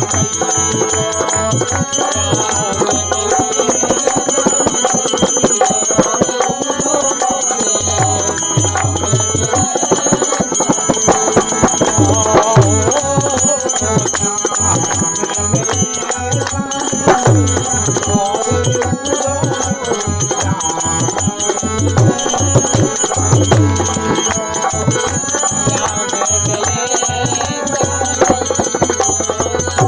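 Bundeli Kartik geet folk song: harmonium and dholak drum with small jingling hand cymbals, and voices singing along to a steady beat.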